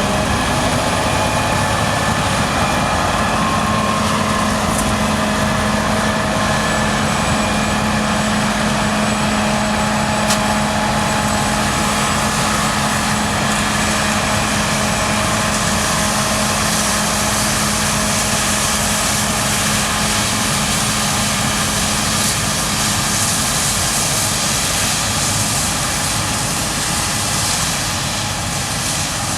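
Claas Lexion 7600 combine harvester running steadily while harvesting, a continuous mechanical drone with a steady low hum that fades about three-quarters of the way through.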